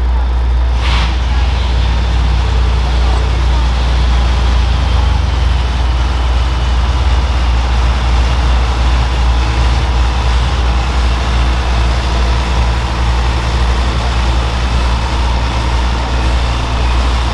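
Alcohol-fuelled super stock pulling tractor's turbocharged engine running steadily at low speed as the tractor creeps forward. A deep engine note sits under a faint high whine, with a brief hiss about a second in.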